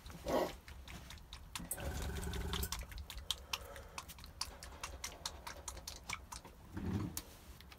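Quick, irregular clicking and rattling of hobby paint dropper bottles being handled and shaken, with a short low hum about two seconds in.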